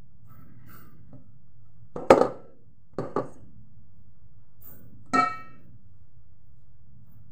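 A metal spoon knocking against a dish while dim sum filling is scooped and wrapped. There is one sharp knock about two seconds in, two lighter knocks a second later, and a ringing clink about five seconds in.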